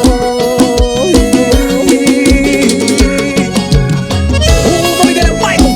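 Instrumental passage of a Brazilian forró song: accordion-like melody lines over a steady, driving drum beat.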